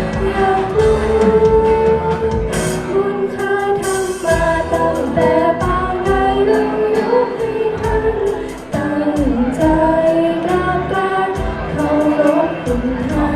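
A song: a voice singing a melody over a steady beat.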